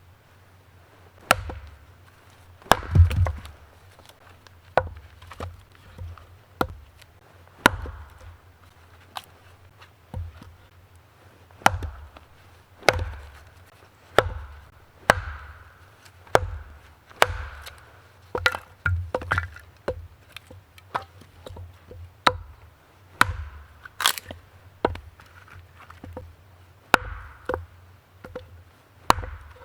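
Wood being chopped with an axe or hatchet: sharp single blows at an uneven pace, about one a second, some landing harder than others.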